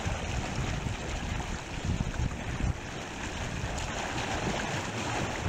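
Water rushing and churning in a river whirlpool, with wind buffeting the microphone in gusts.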